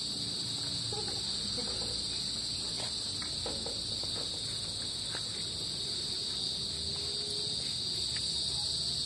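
Steady, high-pitched insect chorus, with a few faint clicks in the middle.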